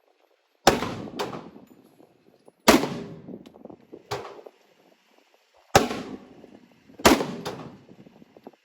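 Glock 23 .40-calibre pistol firing four loud shots, spaced one to three seconds apart, each with a ringing tail. Quieter sharp cracks fall between them.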